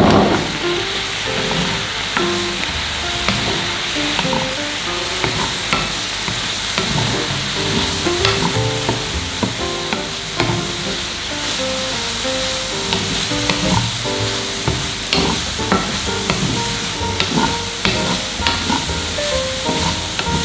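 Bread cubes sizzling as they fry in a pan of butter and sugared milk, with a steady hiss. A wooden spatula stirs them, making scattered taps and scrapes against the pan.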